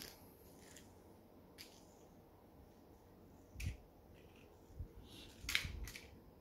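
Small toy vehicles being set down and pushed on a bedsheet: a handful of scattered, faint clicks and taps, the clearest about three and a half and five and a half seconds in, over quiet room tone.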